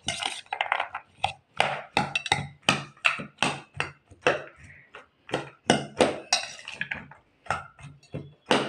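A metal spoon stirring and tossing chopped salad in a stainless steel bowl: repeated clinks and scrapes of spoon on steel, about two or three a second.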